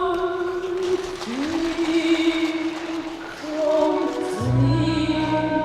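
Figure skating program music over the rink's sound system: a singing voice holding long notes that slide up into pitch, with deep low notes coming in about four and a half seconds in.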